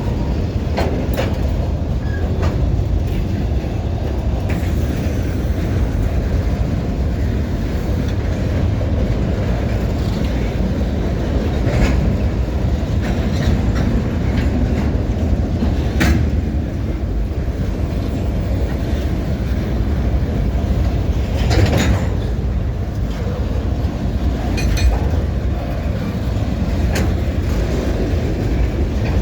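A train rolling along the track with a steady low rumble. Sharp irregular clanks and clicks of wheels over rail joints and cars knock through it.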